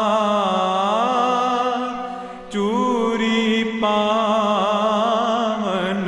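Punjabi song with a singer drawing out long, wavering notes between lines over a steady drone, dipping briefly about two seconds in before the next phrase.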